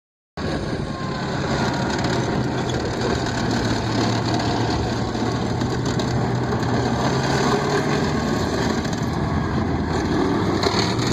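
A steady engine running, with a low even hum over a constant wash of noise. It begins abruptly after a brief cut to silence.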